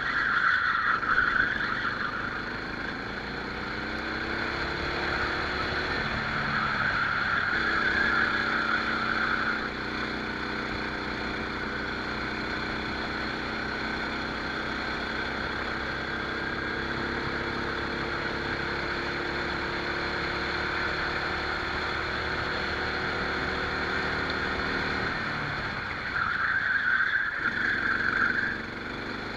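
Racing rental kart's engine at full throttle, heard onboard. Its pitch climbs steadily as the kart accelerates and drops sharply when the driver lifts, about six seconds in and again near the end. Bursts of hissing noise rise over the engine near the start, around seven to nine seconds, and near the end.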